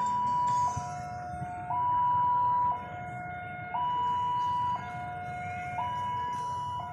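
Electronic two-tone warning alarm alternating steadily between a high and a low pitch, each held about a second, over a low rumble.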